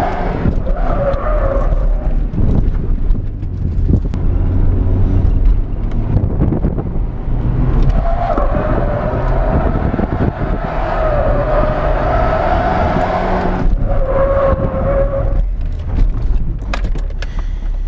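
Inside the cabin of a Nissan 200SX S13, its turbocharged CA18DET inline-four running hard under throttle, with the tyres squealing in several stretches as the car slides sideways in drift attempts.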